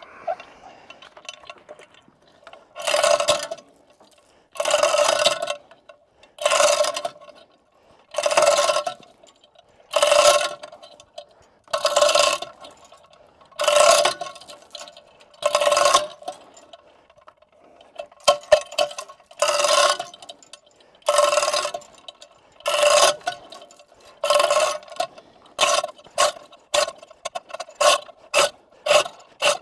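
Manual chain fall hoist being hauled on its hand chain to lift a heavy boulder: a rattling, ratcheting pull with a metallic ring about every two seconds, the pulls getting shorter and quicker, about two a second, near the end.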